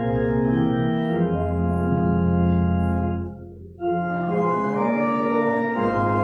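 Church organ playing a hymn in held chords, with a short break between phrases about three and a half seconds in.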